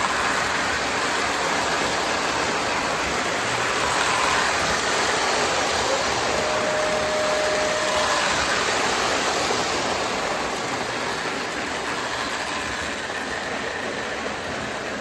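Model electric train running around its track, a steady whirring rumble of motor and wheels on the rails. About six and a half seconds in, a steady pitched tone sounds for about a second and a half.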